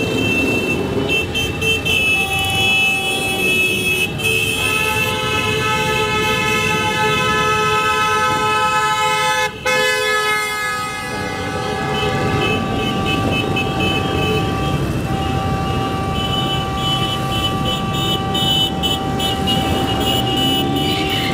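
Many motorcycle horns sounding at once at different pitches, several held for long stretches and overlapping, over the steady running of a column of motorcycles riding slowly past.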